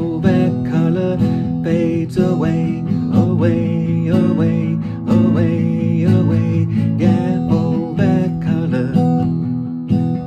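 A man singing to his own acoustic guitar: a slow song with the guitar chords carrying on under the voice.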